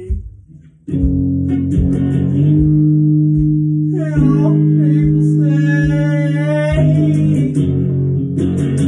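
Electric guitar, a Stratocaster-style solid-body, playing sustained chords over a steady low beat. The music drops out briefly just after the start and comes back in about a second in.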